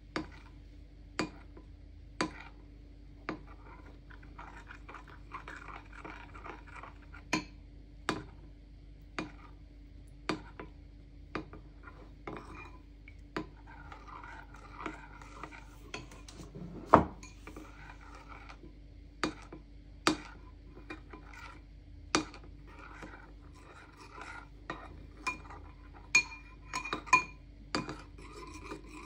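Metal spoon stirring chocolate into hot cream in a ceramic bowl until it melts. It clinks against the bowl roughly once a second with soft scraping between, one clink about halfway through louder than the rest and several quicker clinks near the end.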